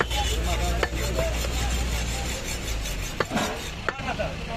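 Meat cleaver chopping goat meat on a thick wooden chopping block: a handful of sharp knocks at uneven intervals, over a steady low background hum.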